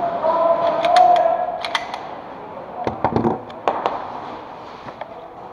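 Handling noise: a scatter of sharp clicks and knocks from gear being moved close to the microphone, with a steady pitched tone under it that fades out about two seconds in.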